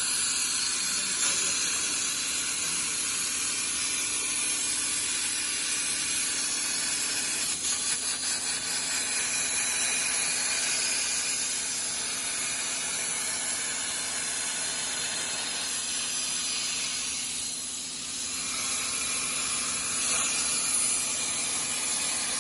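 Virgo Cut 100 plasma cutter's torch arc hissing steadily as the CNC attachment carries it through 25 mm steel plate, with a faint steady hum from the machine underneath.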